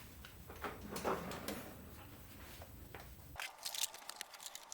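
Faint clicks and taps of small metal parts being handled while a damaged thread on the MIG welder is worked on. The low background hum cuts off suddenly about three and a half seconds in, and sharper clicks follow.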